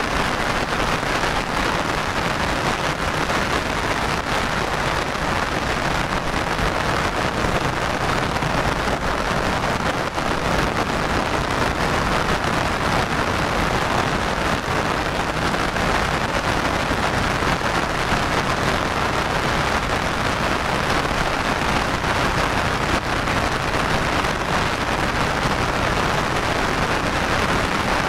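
Heavy rain falling steadily and evenly, with no letup.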